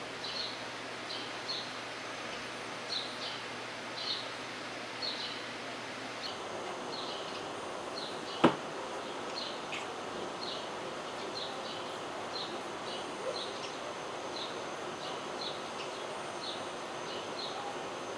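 Young cat chattering at a bird it is watching, the excited prey-watching chatter: short high chirps, about one or two a second. One sharp click about halfway.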